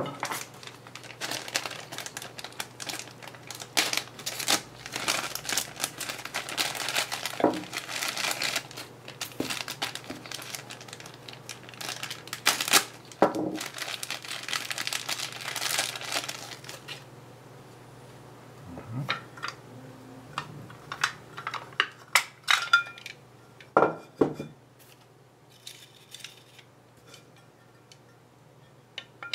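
Clear plastic packaging bags crinkling as they are handled and opened, dense and continuous for about seventeen seconds. After that the crinkling stops and a few separate sharp clicks and knocks follow, as hard plastic parts of the soldering iron stand and its brass wire tip cleaner holder are handled.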